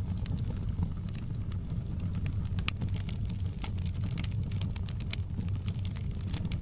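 Wood fire crackling in a fireplace: a steady low rumble of the burning fire with frequent sharp, irregular pops and snaps.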